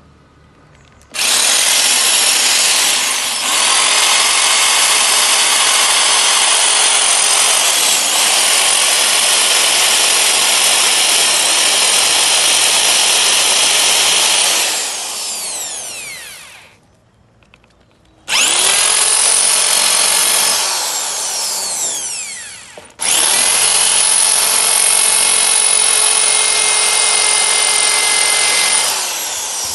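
Electric drill boring into a broken, stuck bolt in a motorcycle frame, in three runs: a long one of about fifteen seconds, then, after a pause of about two seconds, two shorter ones with only a moment between them. At the end of each run the motor's whine falls away as it coasts to a stop.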